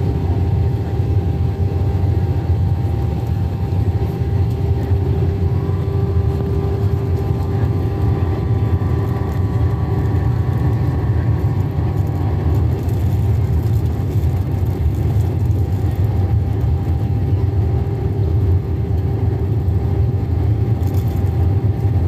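Cabin noise inside an Airbus A319 airliner on approach: a steady low drone of engines and airflow with a couple of held hums running through it. A faint higher whine comes in about six seconds in and fades out around twelve seconds in.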